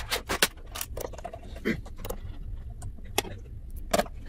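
Plastic laptop bottom case being pressed down onto the chassis, its clips snapping into place: a scattered series of sharp clicks and taps.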